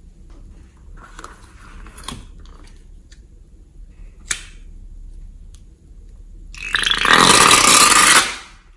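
Blue liquid slime squeezed out of a balloon into a bowl of slime: a loud, noisy squirt lasting about a second and a half near the end. Before it, one sharp snip about four seconds in as the balloon's tip is cut, and quieter handling clicks in the first couple of seconds.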